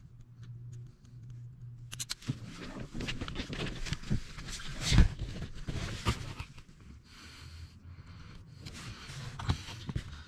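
Hands feeding a lamp wire under a car seat: irregular rustling and scraping against the seat base, carpet and plastic trim, with a few knocks, the loudest about five seconds in. A low steady hum can be heard before the handling starts.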